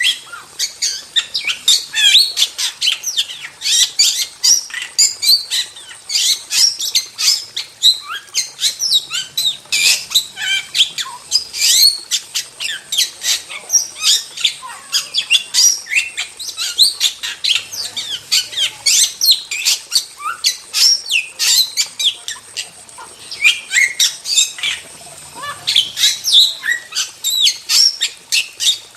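Starling (jalak) singing without pause: a rapid, unbroken string of sharp squawks, chirps and gliding whistles.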